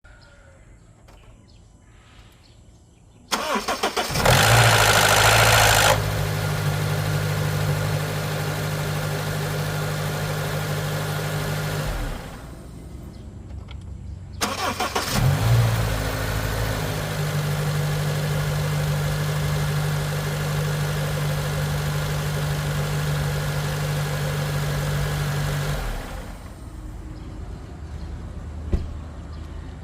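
Honda K24A four-cylinder engine cranked and started twice, each time with a loud rattle for the first second or two after it catches, then settling into a steady idle before being switched off. The cold-start rattle comes with a P0011 code, and the owner's possible causes are a failing VTC actuator, a worn timing chain tensioner or low oil pressure at startup.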